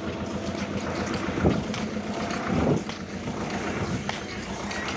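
Bus running with a steady engine and cabin rumble, dotted with small knocks and rattles, and two louder bumps about a second and a half and nearly three seconds in.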